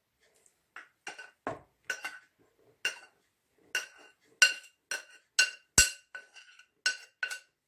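A metal spoon clinking against a glass bowl as flour is scooped out. About fifteen short, sharp ringing clinks, sparse at first, then quicker and more even, about three a second, through the second half.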